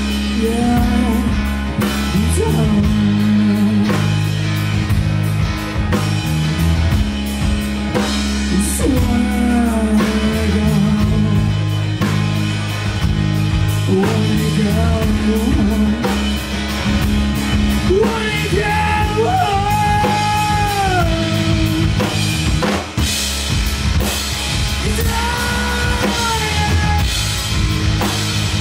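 Live rock band playing: electric guitar, bass guitar and drum kit, with singing over it at times.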